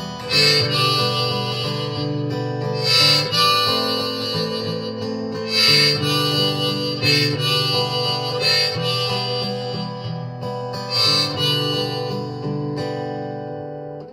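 Harmonica solo of held notes over strummed acoustic guitar, a loud chord struck about every two and a half to three seconds: an instrumental break with no singing.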